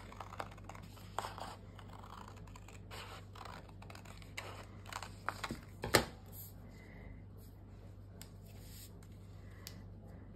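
Scissors snipping through patterned paper in a run of short cuts, then a sharp knock about six seconds in, followed by faint paper handling.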